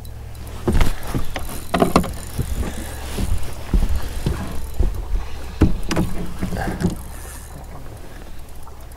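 Irregular knocks and thumps on a fishing boat as an angler moves about and fights a hooked fish, over a steady low hum. The knocks cluster in the first seven seconds and fade near the end.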